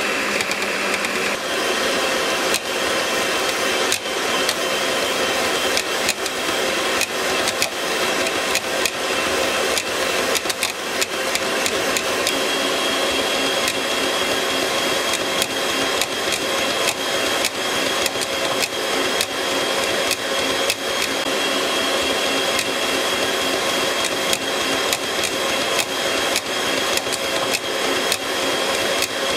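Electric stand mixer running steadily, its twin beaters whipping eggs and sugar toward the ribbon stage, with many sharp clicks throughout. Its whine gains a higher tone about twelve seconds in.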